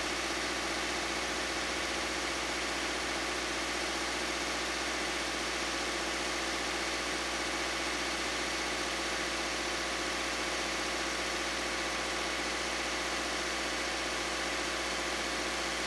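Subaru Crosstrek's FB-series flat-four engine idling steadily, its serpentine belt running over the newly fitted lightweight water pump pulley, started to check that the pulley replacement works without new noises.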